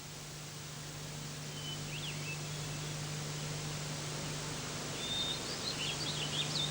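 Outdoor garden ambience: small birds chirping, a few short high calls about two seconds in and a quick run of chirps near the end, over a steady hiss and a low hum.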